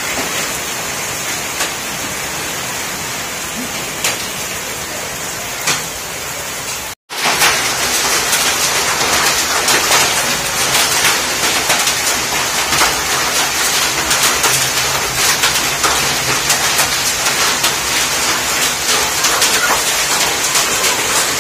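Hailstorm: heavy rain and hailstones falling, a steady hiss dense with small impacts. It cuts out for a moment about seven seconds in and comes back louder.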